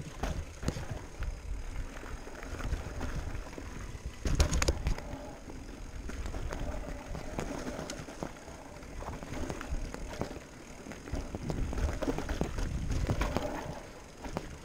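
Electric mountain bike on a rocky trail: irregular clattering and knocking of tyres, frame and chain over rocks, with a low wind rumble on the microphone. The loudest cluster of knocks comes about four seconds in.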